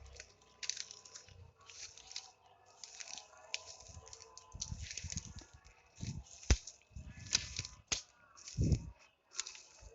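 Irregular rustling and crackling, with two sharp clicks in the second half and a few low thuds.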